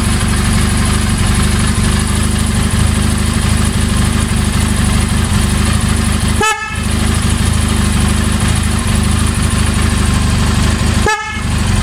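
Oxford 12 V low-tone (410 Hz) snail horn sounding in long steady blasts, with two brief breaks about six and eleven seconds in as the button is released and pressed again, while the motorcycle's engine runs underneath.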